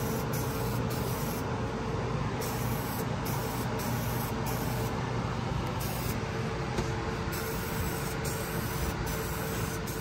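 Aerosol spray can of SEM Color Coat paint hissing steadily in a long continuous spray, laying a tan coat over white primer.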